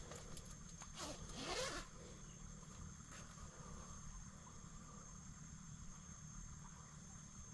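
A zipper pulled once, briefly, about a second in, over a faint steady background.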